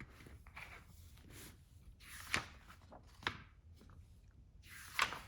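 Paper rustling as the pages of a picture book are turned, with three sharper rustles among fainter handling noise.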